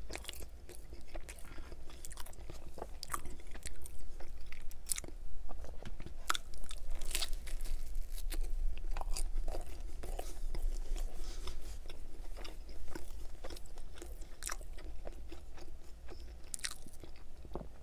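Close-miked eating of a piece of Pizza Hut pepperoni pizza: irregular crisp crunches and wet chewing, with a bite into the crust about halfway through.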